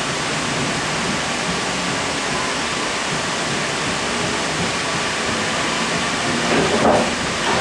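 Interior running noise of a Sydney Trains K-set electric multiple unit under way: a steady rushing noise with a faint steady tone. A brief louder noise comes near the end.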